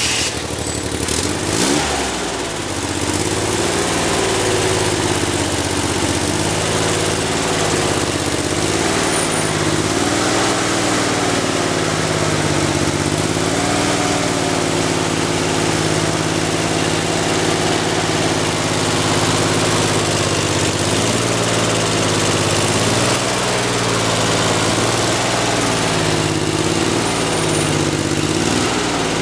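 Freshly reassembled Chevrolet Corvair air-cooled flat-six running on an engine stand, just after starting. The revs climb about two seconds in, then it runs steadily with its speed wavering up and down as the throttle linkage is worked by hand.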